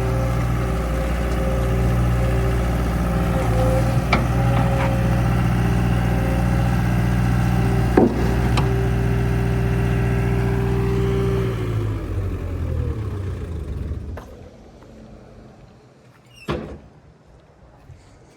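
Skid steer engine running steadily, with a few sharp clicks and a knock about eight seconds in. About two-thirds of the way through it winds down and shuts off, and a single sharp click follows near the end.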